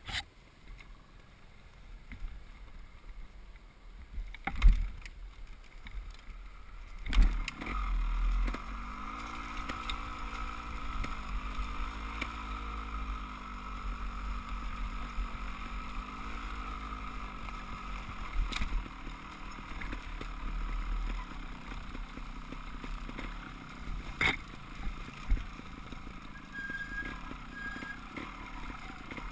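Dirt bike engine running at a fairly even pace on a forest trail, its pitch bending slightly up and down. It comes in after a sharp knock about seven seconds in and has low wind rumble on the helmet-mounted microphone under it. A few other sharp knocks, as from the bike hitting rough ground, are heard scattered through.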